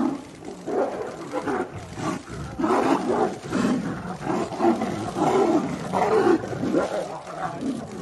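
Two tigers fighting, roaring and growling in a rapid, unbroken run of calls.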